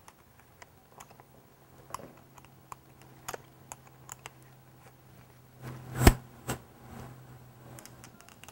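Scattered light clicks and taps of a corded power drill being handled and readied, over a faint low hum, with a sharp knock about six seconds in and a smaller one just after.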